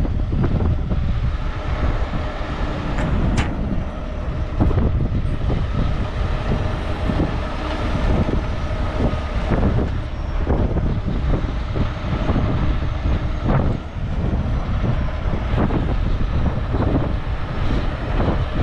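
Heavy rotator tow truck's diesel engine running under load, driving the hydraulic boom as it lifts a loaded 20-foot shipping container, with a faint steady whine over the engine noise.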